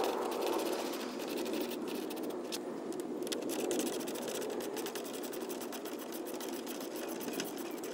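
Rapid, irregular clicking of a hand ratchet driver turning out the grille's T30 Torx bolts, over a steady rushing noise.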